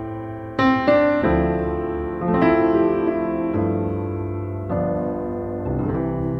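Background piano music, slow chords struck every second or so and left to ring and fade.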